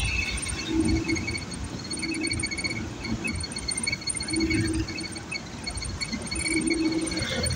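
Steady road and engine noise from a vehicle driving along a street, with a faint rapid high ticking that comes and goes.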